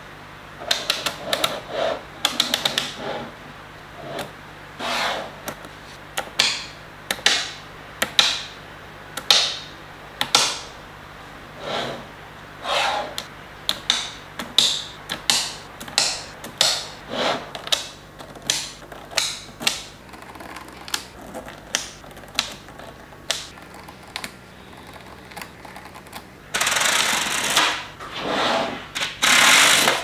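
Small magnetic balls clicking and snapping together on a hard surface as rows are pressed into place: irregular sharp clicks, roughly one or two a second, with a longer rattling clatter near the end.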